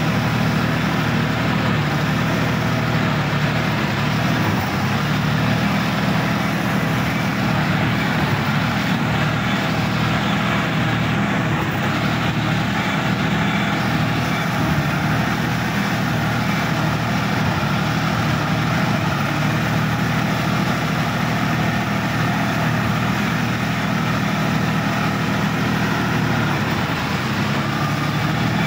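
Sonalika DI-50 RX tractor's diesel engine running steadily, heard from the driver's seat.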